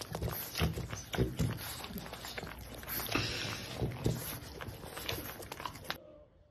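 French bulldog lapping and licking food off a spoon, with rapid irregular wet smacking sounds that stop suddenly about six seconds in.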